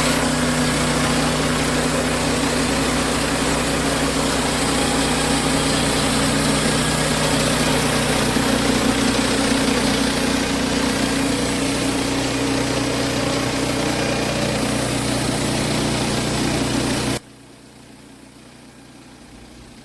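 Wood-Mizer LX50 Super portable band sawmill running steadily under load, its engine and blade cutting through a sappy log. The sound cuts off suddenly about 17 seconds in.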